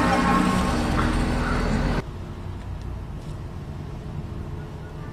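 The tail of a vehicle-mounted train horn blast, its several tones fading over the first couple of seconds, then a sudden cut to a quieter, steady vehicle rumble.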